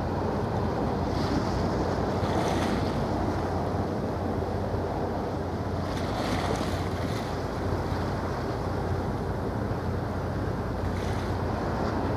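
Wind on the microphone and wash of water over a steady low engine drone from passing vessels. A few brief hissing swells rise and fall.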